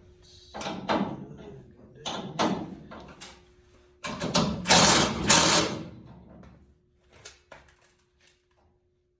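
Hand work on a steel chassis crossmember: several bursts of metal clattering and scraping, the loudest and longest about four to six seconds in, then a few light clicks, over a faint steady hum.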